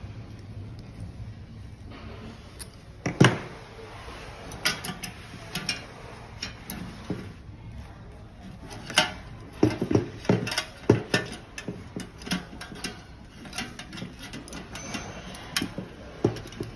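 Irregular metallic clicks and knocks as an ignition needle is worked back into a sheet-metal gas burner housing by gloved hands with pliers. One louder knock about three seconds in, and a quick run of clicks around nine to eleven seconds in.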